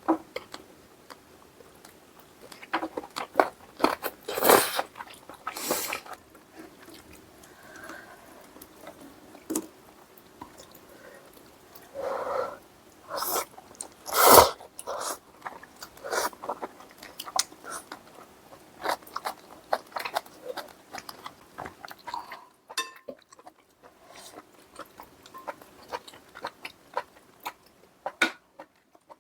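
Close-miked eating of spicy braised chicken stew with daechang: chewing and biting with frequent sharp clicks, and a few louder knocks about four, six, twelve and fourteen seconds in.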